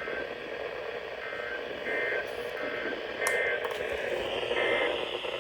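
Emergency Alert System SAME data tones: a series of short two-tone digital bursts, each a fraction of a second long, over a steady hiss of weather-radio static. Coming right after the warning text, they are the end-of-message code that closes a severe thunderstorm warning.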